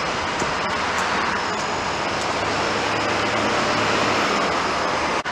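Steady vehicle noise: an even rumble and hiss of engines and road traffic.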